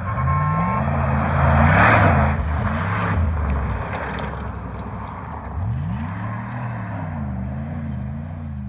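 Dodge Durango's engine revving hard off-road, with a loud rush of noise peaking about two seconds in. The engine drops off, then revs up again about six seconds in, its pitch wavering up and down.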